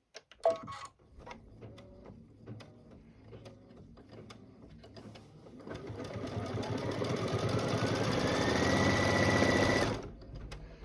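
Embroidery machine stitching the seam line of a stitch-and-flip appliqué piece. It starts as faint, even needle ticks, then grows louder from about six seconds in with a rising whine as it speeds up, and stops suddenly near the end.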